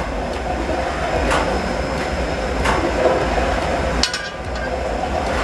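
Walnut-shell burner and its blower fan running steadily in a nut roaster's firebox, a low, even mechanical noise. A sharp metallic click cuts through it three times, about every second and a half.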